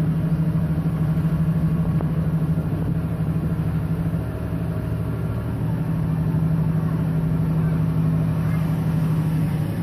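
Farm tractor's diesel engine running steadily as it tows a passenger trailer, heard from the trailer just behind the cab. Its low hum eases briefly about four seconds in, then steadies again.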